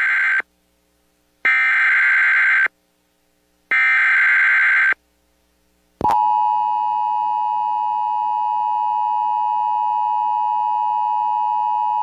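Emergency Alert System SAME data header for a tornado warning. Three bursts of digital tones about a second apart: the first is already ending as the clip starts, and two full bursts follow. About six seconds in, the steady two-tone EAS attention signal starts and holds, marking the start of the alert.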